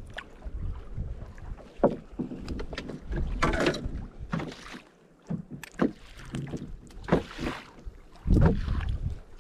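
Water slapping and splashing against a small wooden boat, with scattered knocks and rustles as a fish is lifted out on a multi-hook feather rig. A gust of wind rumbles on the microphone near the end.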